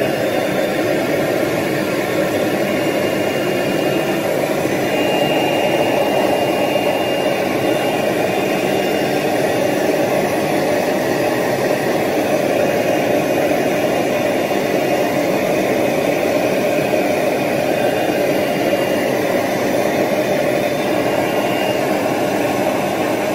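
CNC oscillating-knife cutting machine running steadily, a continuous machine noise with a faint high whine through much of it.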